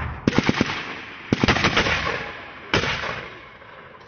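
Weapons fire, mortar rounds among it: a sharp report right at the start, a rapid string of four or five shots about a quarter second in, another string about a second and a half in, and a single heavy report near three seconds, each ringing away in a long echo.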